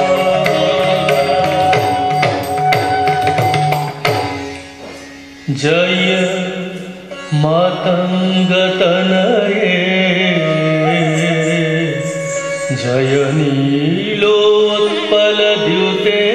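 Odissi dance music: drum strokes in a steady rhythm under a melody for the first four seconds, a brief drop in loudness, then a gliding sung and instrumental melody.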